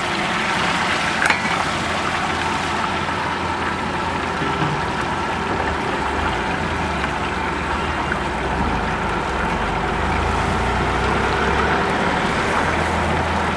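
Chicken pieces deep-frying in a kadai of hot oil: a steady, loud sizzle. There is a single sharp metal clink about a second in.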